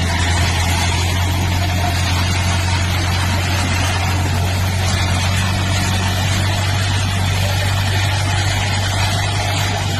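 Heavy bulldozer's diesel engine running steadily with a low, even drone.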